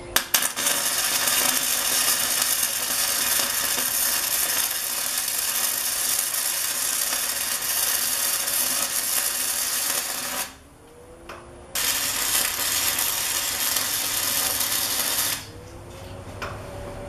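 MIG (wire-feed) welder arc crackling steadily as a bead is run on a corner joint of square steel tubing. One long run lasts about ten seconds, then stops briefly, then a second run of a few seconds follows and stops near the end.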